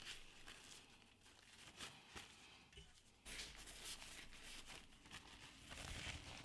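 Faint rustling and brushing of a paper towel as it is rubbed over a rifle barrel's muzzle threads, wiping them free of grease.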